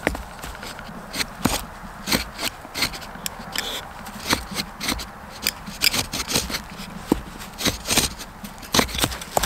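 Knife work by hand: irregular scraping and rubbing with many short, sharp clicks.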